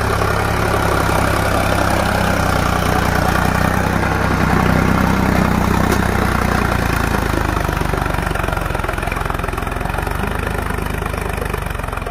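Sonalika DI 745 tractor's three-cylinder diesel engine pulling a disc plough under load in second gear, bogging down slightly. It runs steadily and is loudest as the tractor passes, about halfway through.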